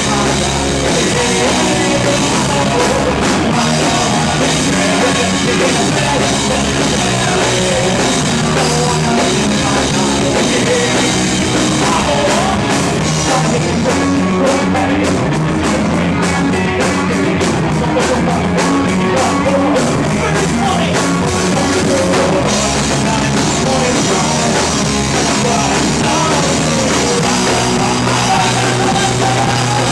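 Rock band playing live, a full band with drum kit, steady and loud.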